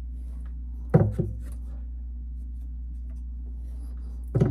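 Tubing cutter being worked around a copper water pipe: faint scraping of the cutting wheel as it is turned and tightened, with a sharp click about a second in, over a steady low hum.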